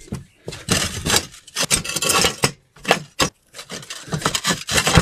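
Clay roof tiles scraping and grating against one another in a run of short, irregular scrapes as a tile is slid back into place over a mounted roof hook.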